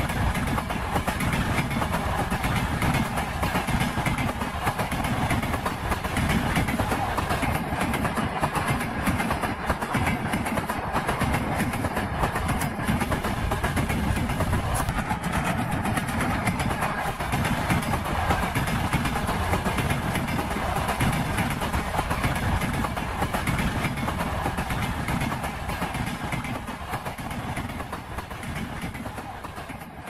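Passing train's wheels clattering over the rail joints, a dense steady clickety-clack over a low rumble, fading out near the end.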